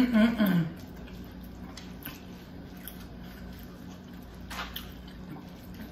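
A short closed-mouth 'mm-mm' hum of enjoyment at the start, then soft, faint squishing and scraping as a fork stirs the strands of a baked spaghetti squash half.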